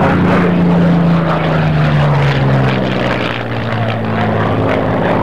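Single-engine propeller fighter flying past overhead, its piston engine note falling steadily in pitch as it goes by.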